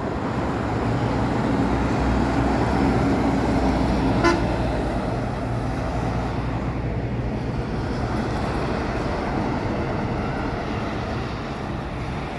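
Highway traffic passing: buses, cars and trucks running by with a steady engine and tyre hum. A short horn toot sounds about four seconds in.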